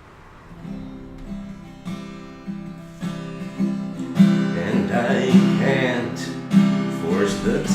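Song intro on strummed acoustic guitar, with regular strokes about every 0.6 s that grow steadily louder. About halfway in, a second wavering melody line joins over the guitar.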